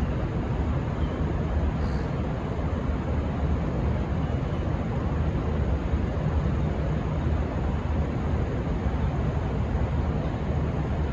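Diesel engines of a V/Line VLocity railcar set running steadily, a low even rumble.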